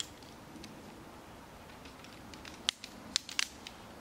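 Camping gear being handled at a picnic table: scattered light ticks, then a quick cluster of five or six sharp clicks and taps near the end.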